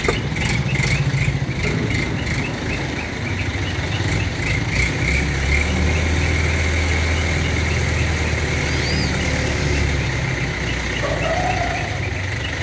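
Mobile crane's engine running steadily while it lowers a heavy machine on its hook, the low drone growing heavier for about five seconds in the middle as the load is handled.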